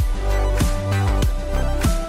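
Background music with a heavy electronic beat: deep bass notes under regular hits that drop in pitch.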